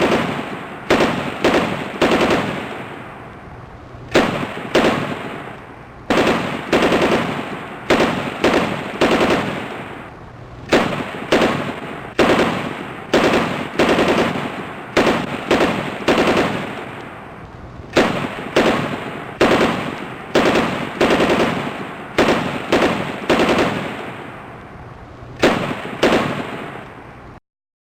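Machine gun firing in short bursts of a few rounds each, with each burst trailing off in a long echo. It cuts off abruptly near the end.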